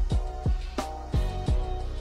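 Background music with a steady drum beat and held instrumental notes.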